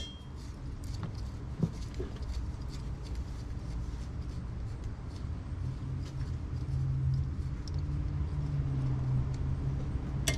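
A low, steady engine-like hum that grows louder in the second half, with faint clicks and one light knock about a second and a half in as parts in the engine bay are handled.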